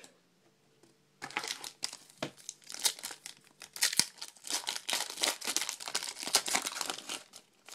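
Foil trading-card pack wrapper crinkling as it is torn open and handled, starting about a second in.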